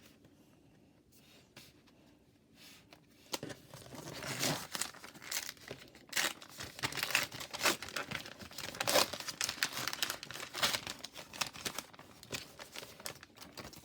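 A trading card pack's wrapper being torn open and crinkled. The irregular tearing and crackling starts about three seconds in.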